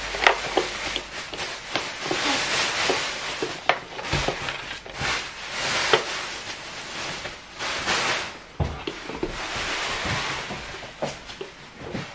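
Plastic parts of a small personal smoothie blender being handled and fitted together: irregular clicks and knocks, with stretches of rustling.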